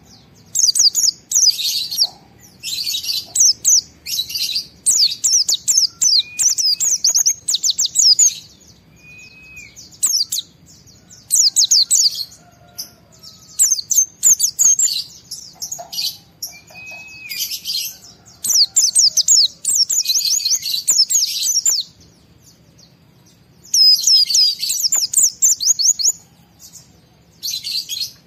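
White-eye (pleci) singing in fast, excited bursts: rapid strings of high twittering chirps lasting a second or two each, broken by short pauses, with a few single slurred lower notes between them.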